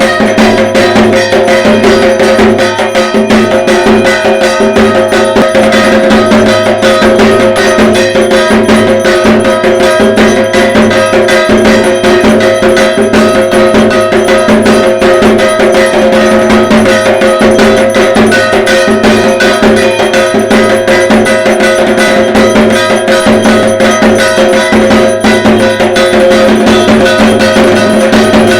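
Dhak, the Bengali barrel drum, beaten with sticks in a fast, unbroken rhythm, with a steady metallic ringing held under the drumming.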